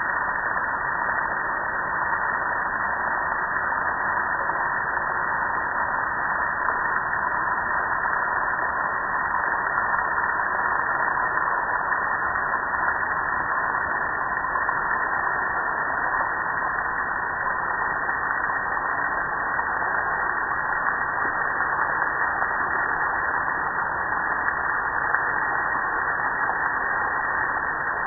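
Garden hose spray nozzle on a shower setting spraying water onto a soapy gas grill: a steady, unbroken rush and spatter of water.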